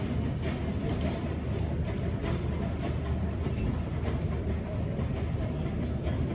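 Airport terminal ambience: a steady low rumble with scattered faint clicks and knocks over it.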